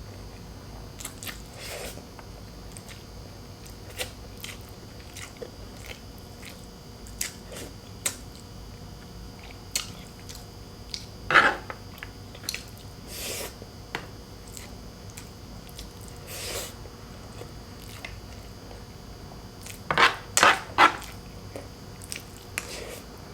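Close-miked mukbang eating sounds of boiled pork hock and rice: chewing and biting with scattered wet clicks. There is a louder bite or smack about halfway through and a quick cluster of three near the end.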